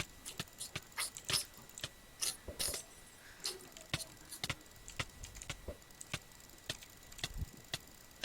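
A run of sharp, irregular clicks, about three a second, some a little longer and hissier.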